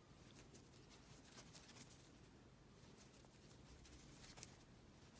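Faint, light clicks and rustling of a crochet hook working cotton yarn, barely above near silence.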